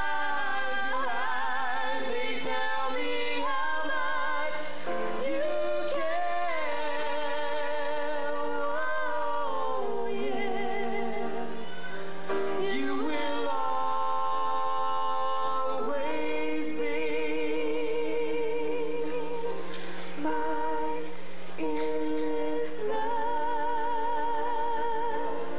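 A young woman singing a slow song solo into a microphone, accompanied on grand piano. Her long held notes carry a wide vibrato.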